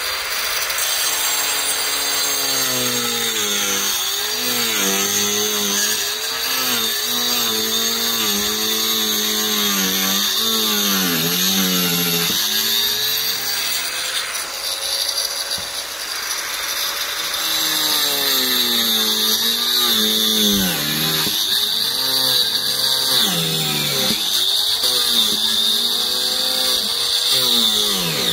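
Angle grinder cutting 12 mm fibre-cement board. The motor's pitch repeatedly sags and recovers as the disc bites into the board and eases off, over a continuous high hiss of the cut.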